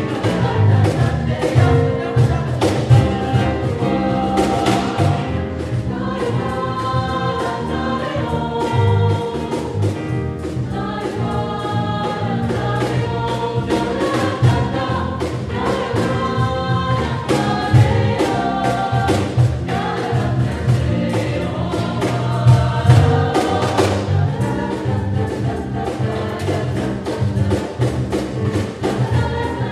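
Background music: a choral track with singing voices over instruments and a steady beat.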